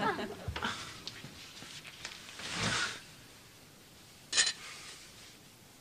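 Studio audience laughter dying away, then a mostly quiet room broken by one short, sharp sound about four seconds in.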